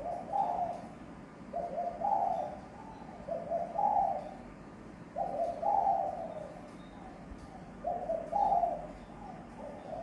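Caged spotted dove cooing, a bird that keepers class as 'trơn ròng'. It gives five low coo phrases, one about every two seconds, with a longer pause a little past the middle.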